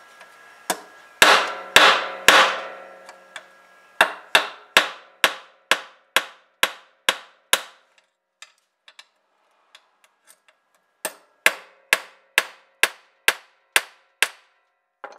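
Hammer blows on metal: three loud ringing strikes, then two even runs of blows at about two a second, with a few light taps between the runs.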